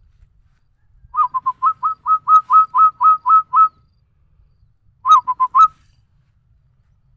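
A person whistling an imitation of a zebra dove (perkutut) call: a quick run of about a dozen short cooing notes, then after a pause a shorter group of four.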